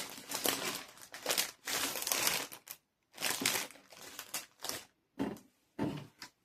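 Artificial flowers and their plastic stems rustling and crinkling as they are handled and pulled at, in about six irregular bursts.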